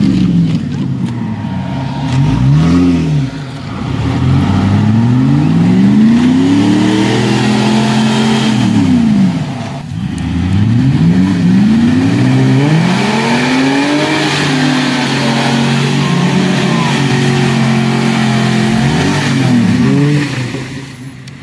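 Off-road vehicle engines revving up and down over and over, the pitch rising and falling every two to three seconds, with short lulls about three and ten seconds in.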